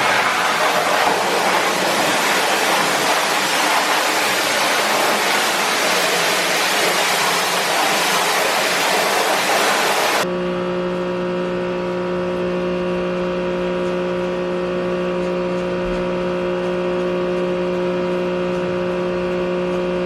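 Pressure washer spraying with a steady, loud hiss for about ten seconds; then it switches abruptly to a steady mechanical hum of several even tones.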